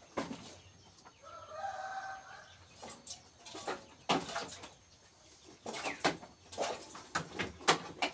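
Farm animal sounds: a short pitched call about a second and a half in, then a run of sharp knocks and scuffles near the end.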